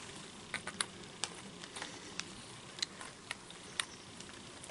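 Faint, irregular light clicks and taps of pliers and threaded pipe fittings as short pipe nipples and elbows are screwed together, about a dozen scattered clicks.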